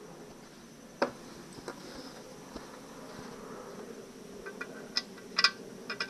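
Sharp metallic clicks and clinks of a steel bolt being handled and started into the aluminium midsection housing of an outboard motor: one click about a second in, then a quick run of clicks near the end.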